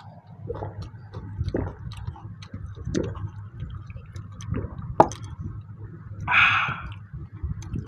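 Close-miked eating sounds: chewing, lip smacks and small wet clicks as rice and mutton curry are eaten by hand from steel plates, over a steady low hum. A sharp click comes about five seconds in, and a short breathy rush of air follows about a second later.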